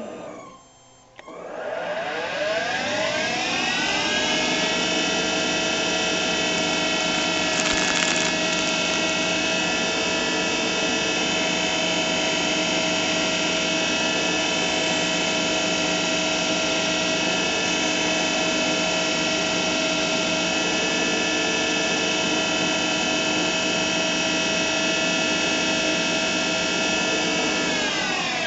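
A machine-tool spindle motor spins up about a second in with a rising whine, runs at a steady speed, then starts winding down with a falling whine near the end. A brief burst of noise about eight seconds in.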